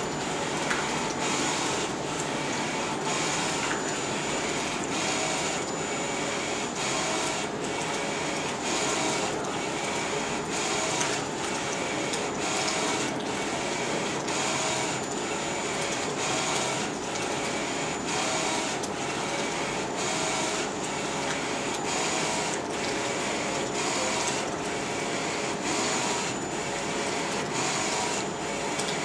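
Flatbed direct-to-garment T-shirt printer running, its print-head carriage sweeping back and forth over the shirt on the platen, with a whirring pass about once a second and a thin high whine.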